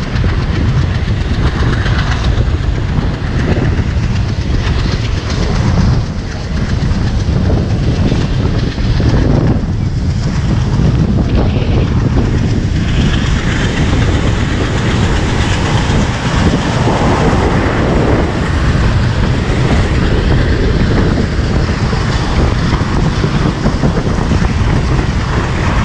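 A passenger train's coach running at speed, the wheels rattling on the rails under a steady rush of air, heard at the open doorway of the moving coach. The noise is loud and steady.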